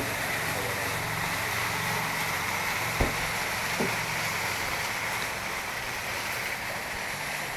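Steady outdoor noise, a broad hiss with a low hum under it, and two short knocks about three and four seconds in as things are loaded into an open car trunk.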